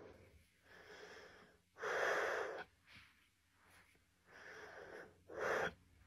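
A person breathing heavily in breathy huffs while a foot presses on a back, with louder breaths about two seconds in and again near five and a half seconds. No back crack is heard.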